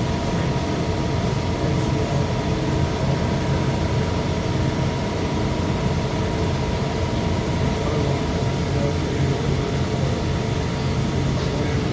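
Traub TNL32-9P Swiss-type CNC lathe running a part program: a steady mechanical hum with a few steady tones over it, as a drill works into the part.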